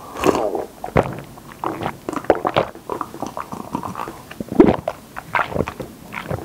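Close-miked gulping and swallowing as a man drinks a milky drink in long draughts from a plastic cup: a steady run of gulps about two or three a second, a few of them louder.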